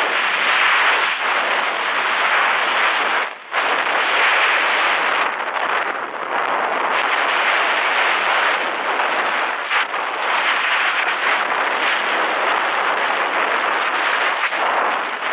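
Steady rushing hiss of skiing fast down a groomed slope: skis sliding on packed snow and wind over the camera's microphone. It drops out briefly about three and a half seconds in and fades as the skier slows to a stop at the end.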